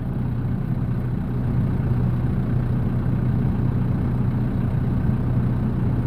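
Vehicle engine idling, a steady low hum that does not change.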